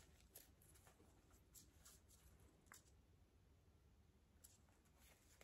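Near silence: room tone with a few faint, scattered soft clicks.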